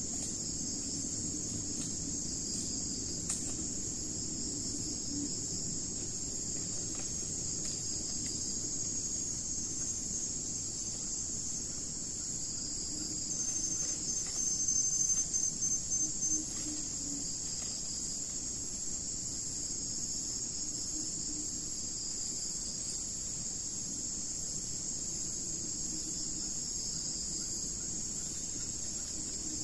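Steady, high-pitched chorus of crickets or similar insects, pulsing continuously. About halfway through, a quick run of short, high chirps rises above the chorus for a few seconds.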